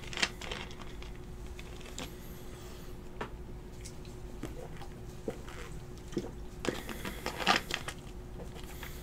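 Faint crinkling, crackling and light clicks of a trading-card pack wrapper and cards being handled, with a denser crackly patch about seven seconds in.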